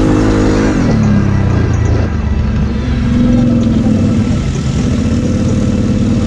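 Kawasaki KFX 700 quad's V-twin engine running while riding through mud. The engine note drops about a second in, climbs again around three seconds, then holds steady.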